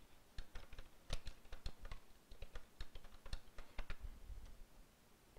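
Typing on a computer keyboard: quick, irregular key clicks that stop shortly before the end.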